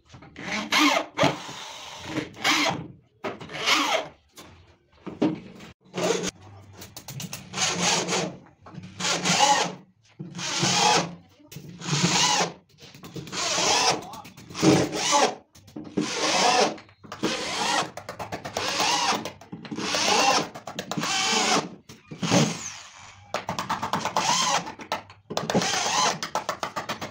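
Power drill working into the wood of a subwoofer cabinet, run in short trigger bursts about once a second, each starting and stopping sharply.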